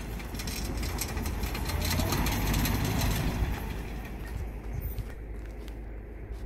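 A small 2001 Daihatsu Terios SUV's engine pulling it up a steep dirt slope under load, in two-wheel drive, mixed with heavy wind noise on the microphone. The sound drops away about four and a half seconds in as the vehicle tops the rise.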